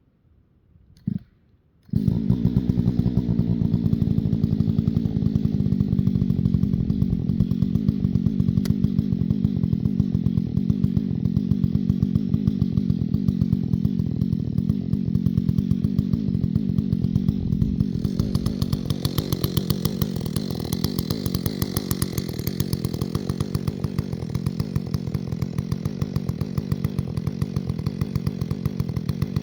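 Chainsaw running steadily, starting abruptly about two seconds in after near silence. Its sound changes about two-thirds of the way through, taking on a brighter, hissier edge.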